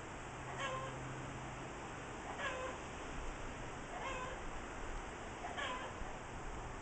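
An animal calling over and over: a short mewing call, four times, about every second and a half to two seconds, each falling in pitch and then levelling off.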